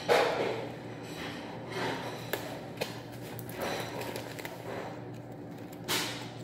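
Sheets of paper sheet music being handled and shuffled: short paper rustles and light knocks, louder at the start and again near the end, over a steady low hum.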